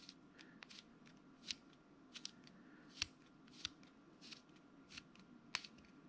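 Number wheels of a four-digit combination bike lock rolled notch by notch while the lock is pulled under tension, giving a run of faint, irregular clicks with a few louder ones. This is the lock being decoded: each wheel is rolled while listening for a louder click, a sloppy spot or a snag at the right digit.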